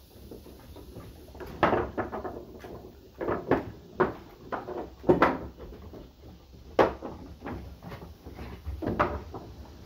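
Irregular knocks and thumps of puppies scrambling and playing on a wooden deck, a few sharp ones louder than the rest.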